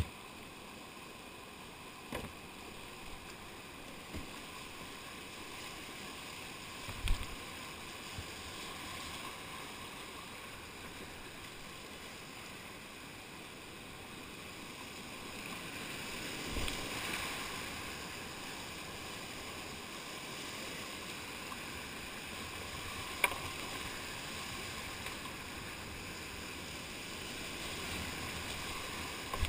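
Whitewater rapids rushing steadily, heard from a kayak running them, swelling a little just past halfway and again near the end. A few sharp knocks stand out, the loudest about seven seconds in and again about twenty-three seconds in.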